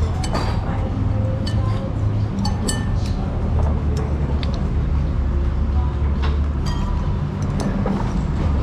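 A metal spoon clinking and scraping against a ceramic bowl in short, scattered clicks as the last of the broth is scooped up, over a steady low rumble.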